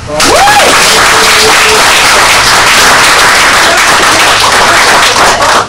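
Audience applauding loudly as a volunteer is called up, with a short rising-and-falling call near the start; the clapping stops abruptly near the end.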